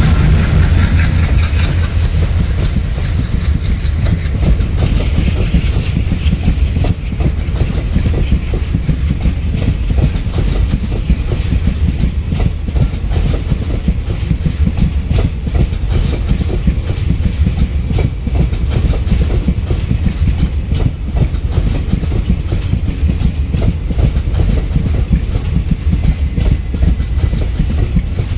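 Coaches of a departing passenger express train rolling past: a steady heavy rumble with the wheels clattering on the track.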